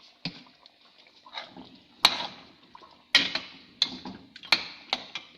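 A spoon knocking and scraping against a cooking pot while stirring curry: about six sharp clinks, the loudest about two seconds in, over a steady hiss from the simmering pot.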